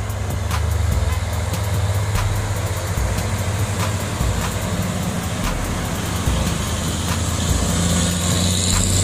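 Heavy diesel trucks running as they drive past, with tyre and road noise growing as one passes close near the end.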